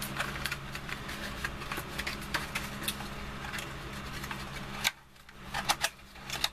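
Thin cardboard being folded and handled: a run of short, crisp clicks and rustles. A steady low hum sits underneath and cuts out about five seconds in.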